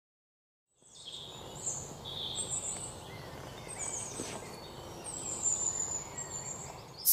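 Birds chirping and calling, several short high chirps and twittering phrases over a steady outdoor background hiss, starting about a second in after dead silence.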